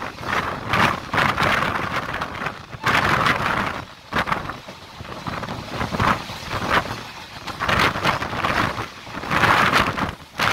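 Passenger train coach running along the track, heard from an open doorway: wind rushing and buffeting the microphone in uneven gusts over the rumble of the wheels on the rails, easing briefly about halfway through.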